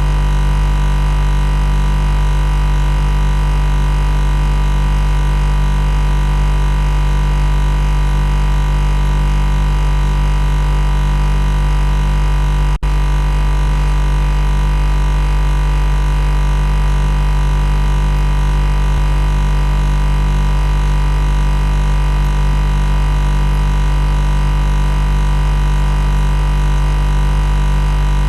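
Loud, steady machine buzz: a deep electrical hum with a stack of overtones, unchanging in pitch and level. A brief click and dip interrupts it about thirteen seconds in.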